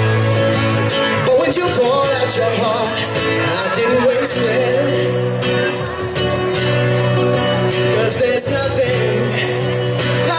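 Live country band playing a slow ballad: two strummed acoustic guitars and a pedal steel guitar with gliding, wavering notes, with some singing.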